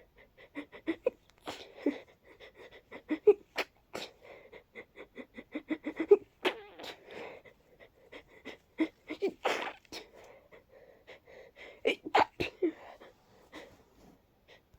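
A person's congested, breathy sneezes coming one after another in a long fit, with many short catching breaths between them and several sharper, louder sneezes. The stuffed-up sound comes from a head cold.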